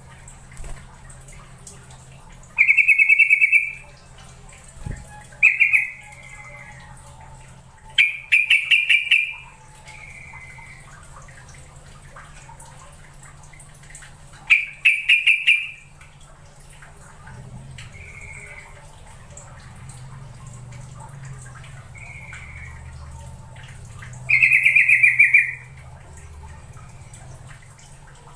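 Yellow-vented bulbul calling: loud bursts of rapid chattering notes, each about a second long, repeated every few seconds, with softer single notes in between.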